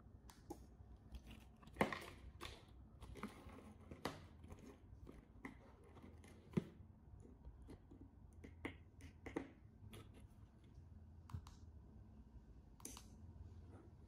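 Quiet, irregular small clicks and plastic handling: buttons pressed on 433 MHz key-fob and wall-switch remotes and on the learning button of a KR1201 wireless relay board, with the board's relay clicking as the lamp it controls switches on and off. A couple of sharper clicks stand out, about two seconds in and past six seconds.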